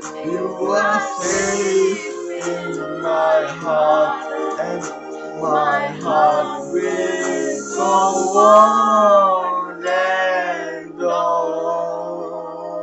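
A man and a woman singing together over a backing track, holding long, wavering notes.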